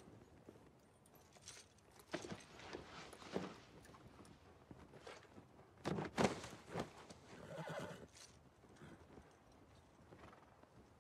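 Horses shifting and stepping on straw-covered ground, hooves thudding in scattered groups, the loudest about six seconds in, with a brief whinny soon after.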